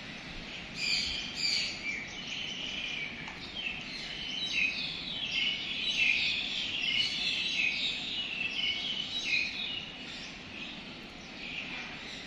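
Birds chirping: many short, high calls overlapping, busiest through the middle and thinning out near the end.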